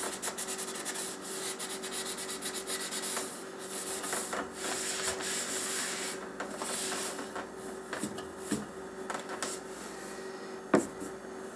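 A dry rag scrubbing the inside of a refrigerator, repeated back-and-forth rubbing strokes working at a stuck-on spot. One sharp knock near the end.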